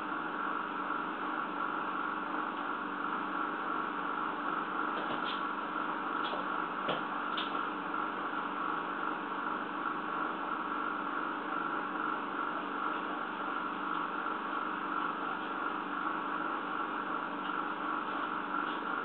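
Steady hum and hiss, with a few faint clicks about five to seven seconds in.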